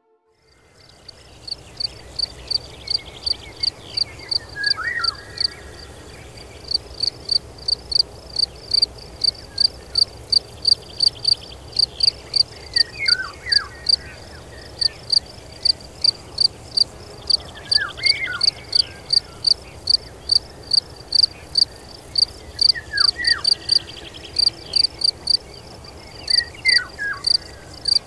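A cricket chirps steadily in short, high-pitched chirps, about three a second. Now and then a bird gives a brief falling call, five times in all.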